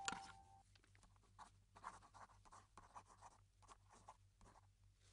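Blue felt-tip marker writing on a paper receipt: faint, short scratching strokes, about three a second, as letters are drawn.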